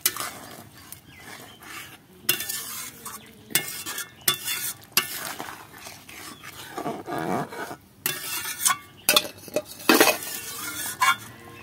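A metal spatula stirring and scraping around a metal kadai of bubbling fish curry, in irregular strokes with clinks against the pan.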